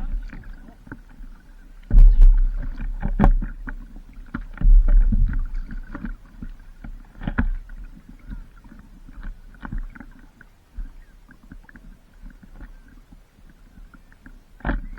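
Stand-up paddleboard paddle strokes splashing through water, with sharp splashy clicks and heavy low rumbling bursts about two and five seconds in, settling quieter in the second half.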